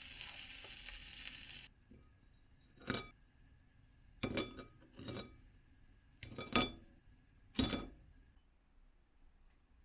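Food sizzling in a frying pan, cut off abruptly after a second or two; then about five separate clinks of dishes or glassware, each ringing briefly.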